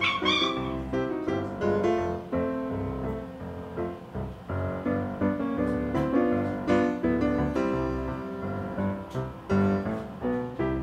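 Upbeat silent-film-style piano music playing as a background track. A brief high-pitched sound cuts in over it at the very start.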